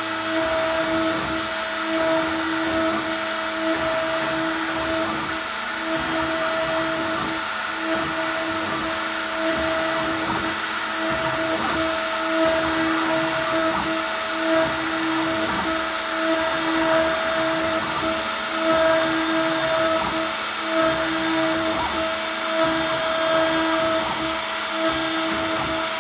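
CNC router carving a plaque: the spindle runs with a steady whine over a continuous rushing noise, without a break.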